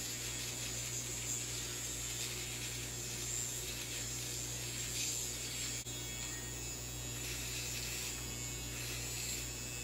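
Finishing Touch Flawless battery-powered facial hair remover buzzing steadily as it is run over the skin of the cheek and jaw.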